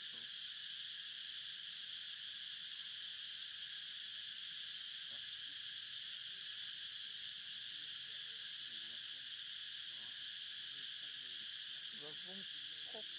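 Steady, high-pitched insect chorus in forest trees, an unbroken shrill hiss, with faint distant voices in the second half.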